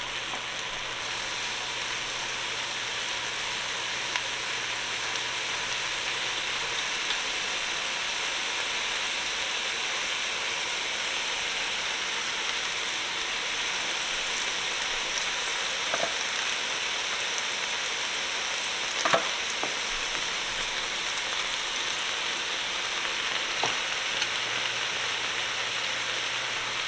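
Chopped onions and bell peppers sizzling steadily in hot olive oil in an enamelled cast-iron pot, with a few faint knocks now and then.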